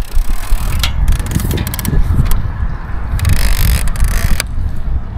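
Wind buffeting the microphone as a loud, uneven low rumble. From about one second in to about four and a half seconds in, short clicks and brief scraping hisses come through, most likely fishing tackle being handled.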